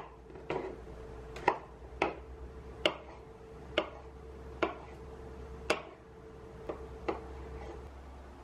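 Kitchen knife chopping zucchini and then slicing tofu on a bamboo cutting board: about ten separate knocks of the blade meeting the board, roughly one a second or a little faster, growing weaker toward the end.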